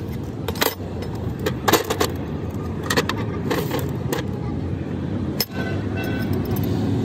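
Sharp metallic clinks and knocks, as of tools and metal parts being handled, over a steady low rumble of engines or traffic.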